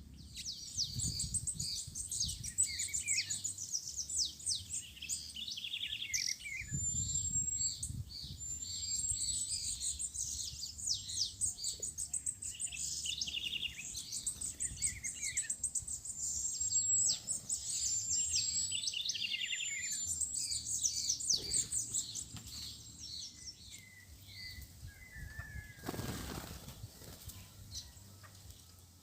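A flock of songbirds chirping and singing at once: many short, high, overlapping calls and whistles in a dense chorus that thins to scattered calls about three-quarters of the way through.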